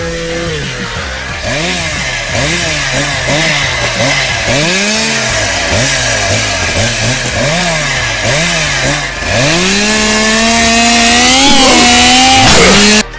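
Chainsaw engine revved up and down over and over, roughly once a second, then held at full throttle for about three seconds. It is loudest near the end and cuts off abruptly.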